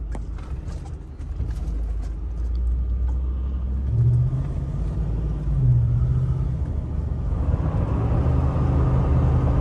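Ford F-150 pickup driving, heard from inside the cab: a low engine hum and road rumble that grows louder as the truck picks up speed, with a deeper humming tone coming and going from about four seconds in.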